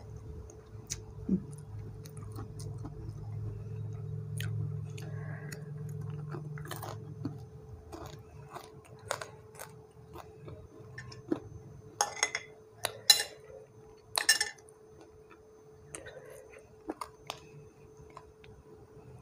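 Close-up chewing and mouth sounds of someone eating rice and chili dip, with scattered sharp crunches. The loudest crunches come in a cluster about twelve to fourteen seconds in.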